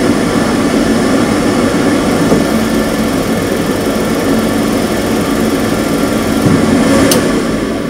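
Glow-worm combi boiler's fan running with a steady hum during a start-up attempt in which the burner fails to ignite. A sharp click sounds about seven seconds in.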